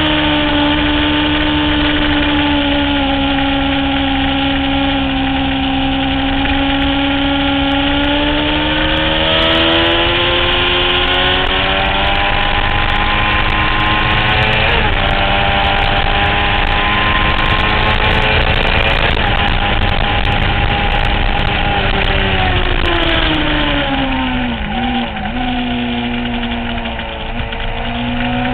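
Honda CBR600F4i sport bike's inline-four engine running hard on track, heard from the bike with a steady rush of wind noise. The engine note falls and climbs with the corners, shifts about halfway through, drops sharply a few seconds before the end as the rider slows, and climbs again near the end.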